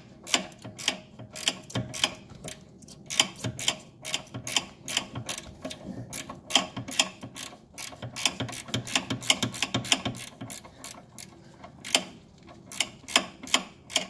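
Ratchet wrench clicking in quick runs as it is worked back and forth on a 10 mm ride-height adjuster bolt, turning it counterclockwise to lower the suspension, with a short pause a little before the end.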